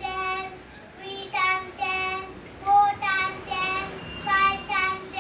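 A young child's voice in a string of about eight short, drawn-out, sing-song syllables, each held on a steady pitch: the speech of a deaf child learning to talk, too unclear for the words to be made out.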